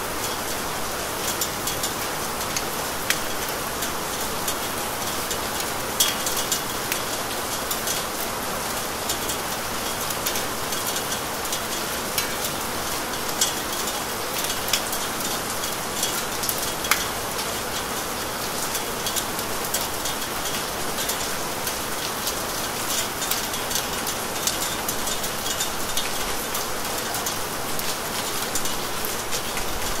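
Steady rain falling, with many sharp ticks of individual drops striking surfaces.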